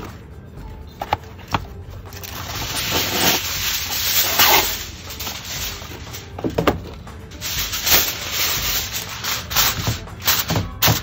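Aluminum foil being pulled off its roll and torn from the box, then crinkled and rustling as it is pressed down into a tent over a meatloaf, with sharp crackles and clicks among the rustling.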